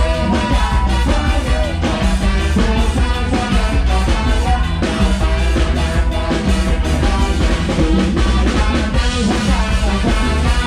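Live band playing upbeat Thai ramwong dance music with a steady beat: drum kit, congas, bass and keyboard, with a male singer singing over it.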